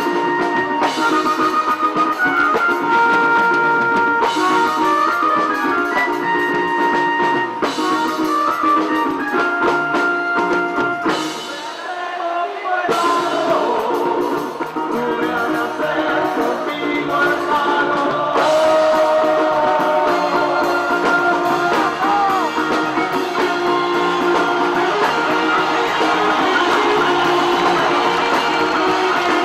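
Rock band playing live with drum kit, guitar and piano, sustained melodic notes over a steady beat, with a crowd singing along. The music drops back briefly about twelve seconds in, then builds again.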